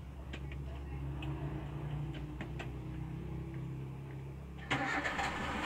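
Daihatsu Espass minivan engine idling with a steady low hum, heard from the driver's seat, with scattered light clicks. Near the end a sudden louder rush of noise lasts about a second.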